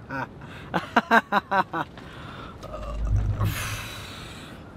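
A man's long breathy exhale, a sigh or snort of amused disbelief, about three seconds in, with a low puff of breath on the microphone at its start.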